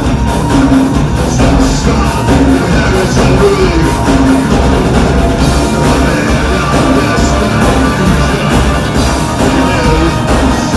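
Industrial metal band playing live at full volume: pounding drums, distorted electric guitar and synthesizers in a steady driving beat.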